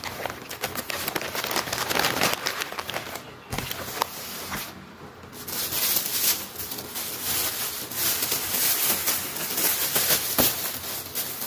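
Paper food wrapping and a thin plastic bag crinkling and rustling as they are folded and handled, a dense run of crackles with two short lulls.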